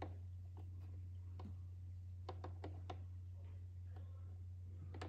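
Steady low hum with faint, scattered clicks and light taps at irregular intervals.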